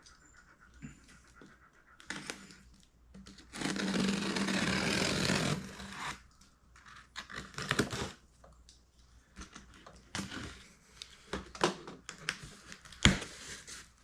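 Cardboard box being opened and handled by hand: scattered taps and rustles, a rough scraping noise lasting about two seconds starting about four seconds in, and a sharp knock near the end.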